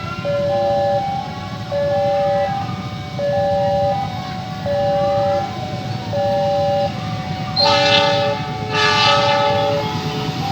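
Railway level-crossing warning siren sounding a repeating two-tone alarm, switching between a low and a high note about every three-quarters of a second, signalling an approaching train. Near the end a train horn blows twice over it, the loudest sound here.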